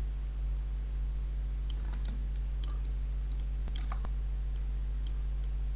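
Computer mouse clicking: a dozen or so light, separate clicks starting about a second and a half in, over a steady low hum.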